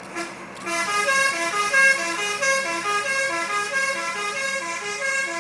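Telolet bus horn on a Handoyo bus playing a quick melody, with several horn trumpets sounding together in stepped notes that change every fraction of a second. It opens with a couple of short toots, and the full tune starts about a second in.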